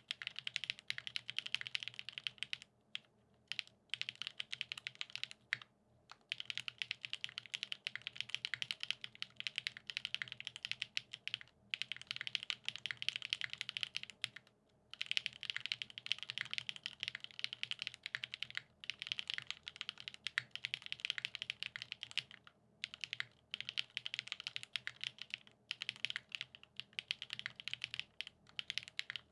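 Fast, steady typing on a custom mechanical keyboard with lubed Gateron X SW Pure Berry linear switches on a polycarbonate plate, dense key clacks broken by a few brief pauses.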